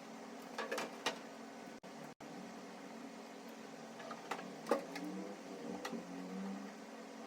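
A few clicks and knocks, as of parts being handled, over a steady low hum.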